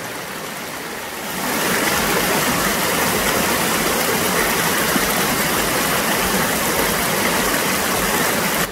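Water rushing and splashing down a small rocky cascade in a stream, a steady hiss that grows louder about a second and a half in as the sound comes from close to the foaming water.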